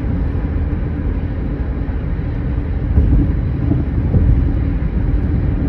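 Steady low rumble of a moving car, engine and road noise with a faint steady hum.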